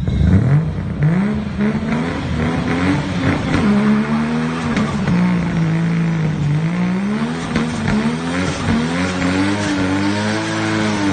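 Turbocharged car engine revved over and over, its pitch climbing and dropping in a run of quick blips, with one longer fall and climb near the middle.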